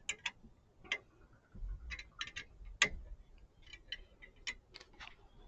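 Irregular sharp clicks and light metallic taps from hand tools and a fitting being worked on an A/C line under the car, some in quick pairs, with a low handling rumble near the middle.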